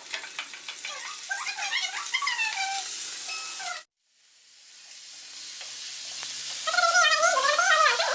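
Boiled goat offal sizzling as it fries in oil in a pan, stirred now and then. A wavering high-pitched whine sounds over the sizzle several times, loudest near the end. The sound cuts out abruptly about four seconds in and fades back up.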